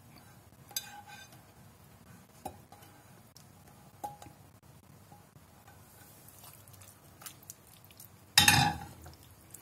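Thick paste being scraped from a non-stick pan into a glass bowl with a spatula: faint scrapes and light taps, then a single louder clatter of cookware about eight seconds in.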